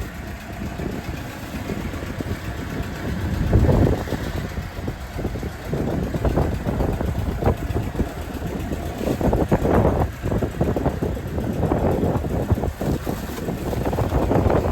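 Fishing boat's engine running steadily, under irregular bursts of noise that come and go throughout.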